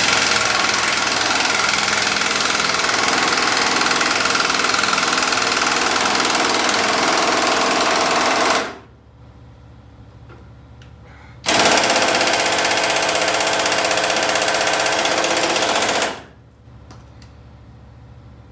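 Pneumatic impact wrench hammering on a stubborn front-suspension bolt in two long bursts, the second starting about three seconds after the first stops.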